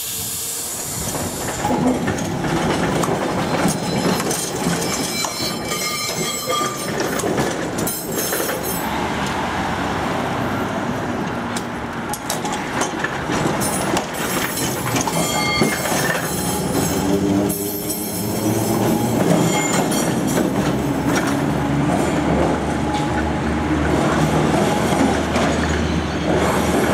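W-class tram rolling slowly over curved track, its steel wheels squealing in short high tones a few times over a steady rumble and clatter of wheels on rail.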